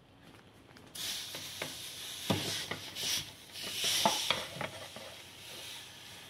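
Freshly roasted peppers sizzling on the hot plate of a G3 Ferrari pizza oven. A steady hiss sets in about a second in, with a few sharp knocks of a fork against the plate in the middle.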